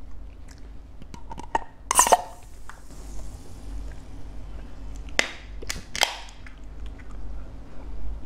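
A person opening and drinking a tamarind Mirinda soda: a loud crack about two seconds in followed by a fading fizz, then gulping and a few sharp clicks.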